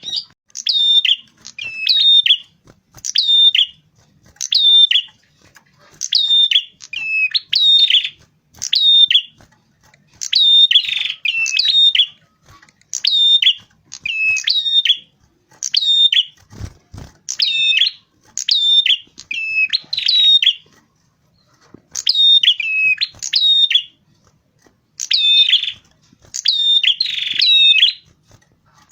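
Prenjak kepala merah, a small cisticolid songbird, calling in quick repeated phrases of sharp chirps that step down in pitch, about one phrase a second with short pauses between bursts. A brief low thump sounds once past the middle.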